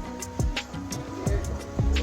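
Background music with a steady beat: deep kick-drum thumps and crisp hi-hat ticks over a sustained melody.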